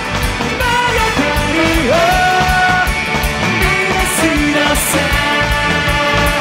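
Live ska band with a brass and saxophone section and a drum kit playing loudly, a male lead singer singing long held notes that slide between pitches over it.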